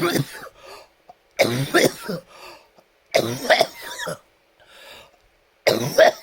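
A man coughing in four bouts about one and a half seconds apart. It is a bothersome cough that comes with a runny nose and, in his words, makes his breathing feel heavy.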